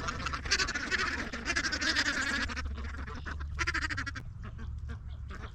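A flock of ducks quacking, in a long burst of overlapping calls and then a shorter one, over a low steady rumble.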